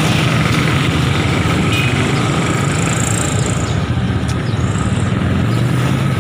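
Street traffic: a vehicle engine running with a steady low hum over the general noise of the road.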